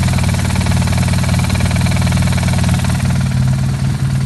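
BMW R1200R's boxer twin idling in neutral with the clutch let out, with a rattle from the gearbox. The mechanic puts it down to the gearbox input shaft and its damper.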